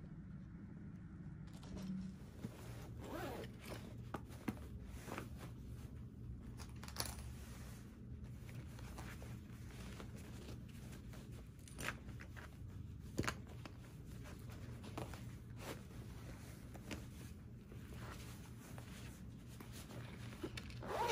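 Zipper on a fabric foldable duffle bag's pocket being worked open and closed, with rustling and handling of the bag's fabric and a few sharp ticks.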